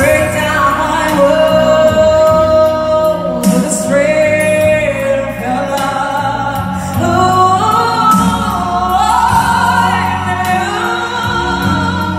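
A woman singing through a microphone and PA over backing music, holding long sustained notes. Her line climbs step by step to higher notes in the second half.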